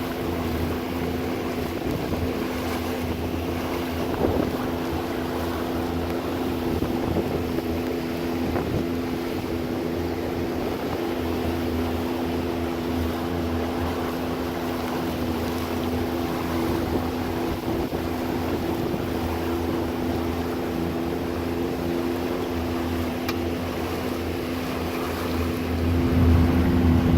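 An engine running at a steady speed, a constant hum with wind on the microphone.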